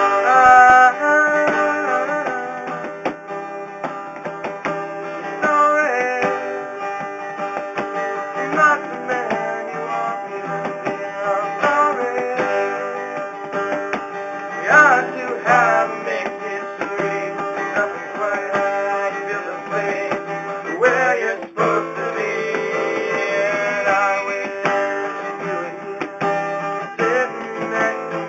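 A guitar playing a song, chords and notes ringing on without a break.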